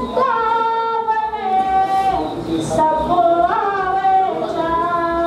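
A woman singing Hindi verse in a melodic chant, one voice holding long notes of about a second each with short glides between them.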